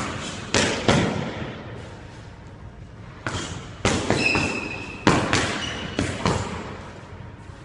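Boxing gloves landing punches during sparring: about seven sharp smacks in two clusters, each echoing briefly off the walls of a squash court. There are a couple of short high squeaks of sneakers on the hardwood floor.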